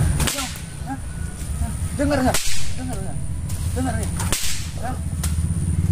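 A whip lashing three times about two seconds apart, each stroke a sudden sharp crack.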